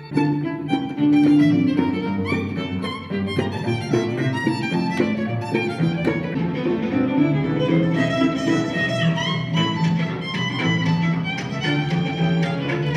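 Violins playing a lively instrumental piece with double bass and accordion, the violins running in quick notes over a steady bass line.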